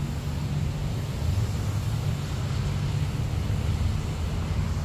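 Steady low rumble with an even hiss underneath: outdoor background noise.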